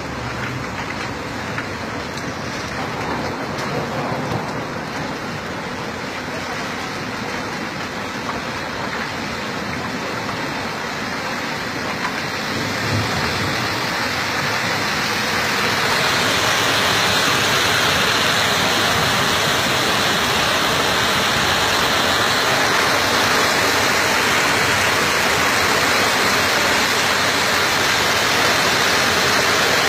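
Wet-road tyre and car noise with rain, heard from inside a vehicle. About halfway through, a steady rushing of floodwater pouring over the overflowing river's embankment grows louder and takes over.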